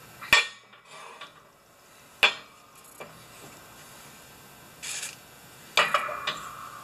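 Steel press plates, spacers and a control arm being handled and set down on the steel bed of a hydraulic shop press: a few sharp metal knocks, a short scrape, and near the end a clank that rings briefly.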